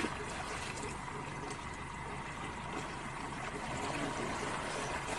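A single splash as a jaguar seizes a caiman in a river, followed by a steady wash of water noise with a faint steady hum under it.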